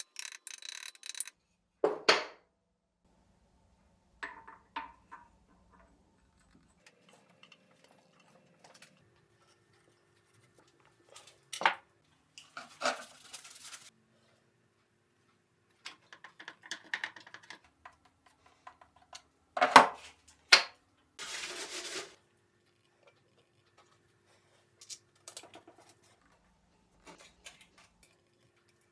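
Steel machine parts and tools being handled during reassembly of a milling machine: scattered metal clinks and knocks with quiet gaps, the loudest two close together about two-thirds of the way through, followed by about a second of hissing noise.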